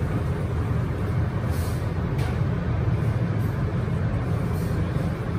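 A steady, low roar of commercial kitchen background noise, strongest in the bass, with a couple of faint light taps about one and a half and two seconds in.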